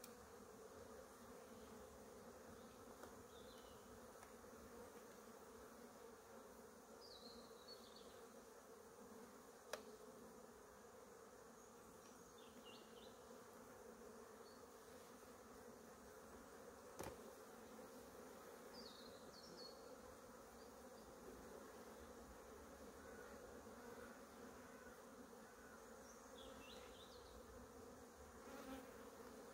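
Faint, steady hum of honeybees flying around a hive, with a few short high chirps and two sharp clicks about ten and seventeen seconds in.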